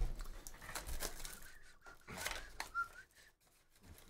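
Cardboard Bowman's Best hobby box and its foil card packs being handled and opened by hand: faint crinkling with light taps and scrapes.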